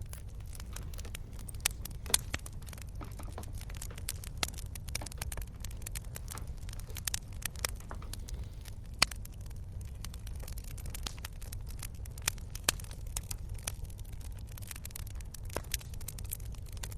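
Campfire crackling: frequent sharp pops and snaps of burning wood over a steady low rumble.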